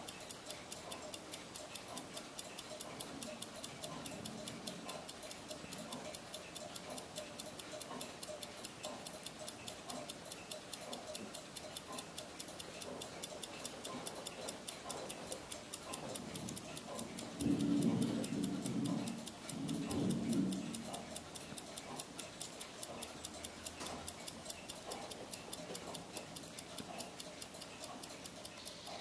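Small mechanical desk clock (Didisheim Goldschmied 'Le Petit Forgeron') ticking steadily, several quick, even ticks a second. Two short spells of a louder low sound come about two-thirds of the way through.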